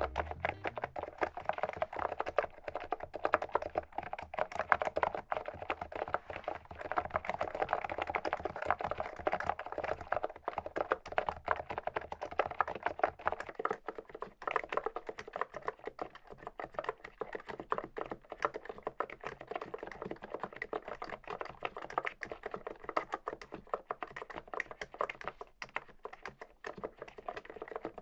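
Typing on an Archon E1 PRO contactless-switch gaming keyboard: a steady stream of rapid keystrokes clacking without pause.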